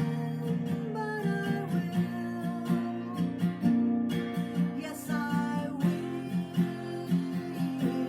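Acoustic guitar strummed in a steady rhythm, with a sung melody line coming in over it at times.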